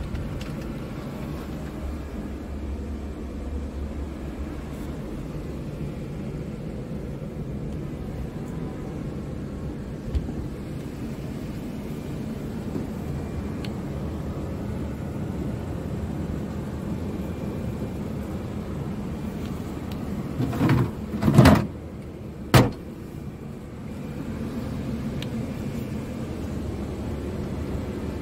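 Steady low rumble of the Scania R truck's engine idling, heard inside the cab. About twenty seconds in, a cab drawer slides shut in two movements, then latches with one sharp clack.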